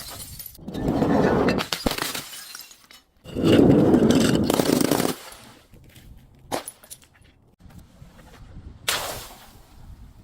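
Glass bottles breaking and crunching as they are crushed, in several loud bursts with the longest and loudest about three to five seconds in, then a single sharp crack and a short final burst of breaking glass near the end.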